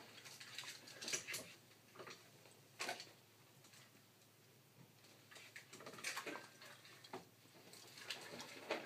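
Ultrasonic LED mist maker churning water in a glass vessel: faint, irregular spattering ticks over a low steady hum.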